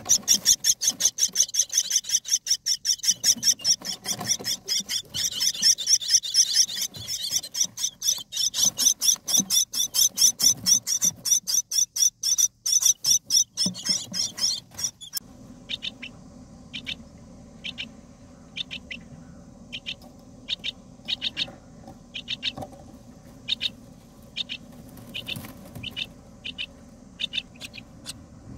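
Common myna nestlings begging at the nest as an adult feeds them: rapid, loud, high calls several a second for about fifteen seconds. Then the sound changes abruptly to quieter single chirps about once or twice a second over a steady low hum.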